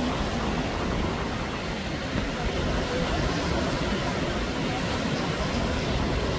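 Surf breaking and washing up a sandy beach: a steady rushing noise with a heavy low rumble.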